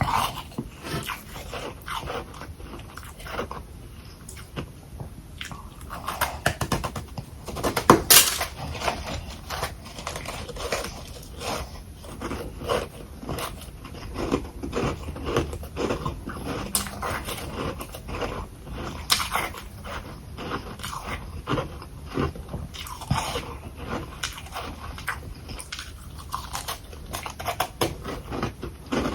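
A person biting and chewing balls of humidifier freezer frost: dense, irregular crunching all through, with the loudest bite about eight seconds in.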